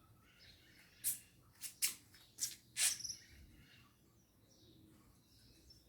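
A bird's short, sharp high-pitched calls, five in quick succession about one to three seconds in, over faint outdoor background.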